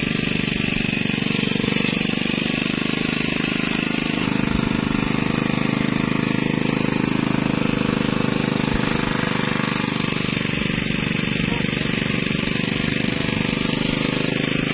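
An engine on a fishing boat running steadily at close range, with a fast, even chug.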